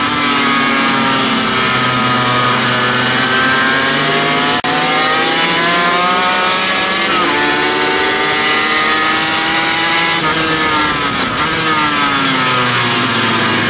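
Sports motorcycle engine at high revs heard from on board at speed, over steady wind rush. Its pitch climbs as it accelerates, drops at a gear change about seven seconds in, climbs again, falls as it slows a few seconds later, then rises again near the end.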